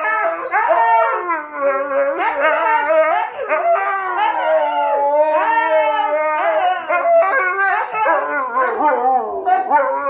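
A husky howling in long, wavering yowls that rise and fall in pitch, with hardly a break.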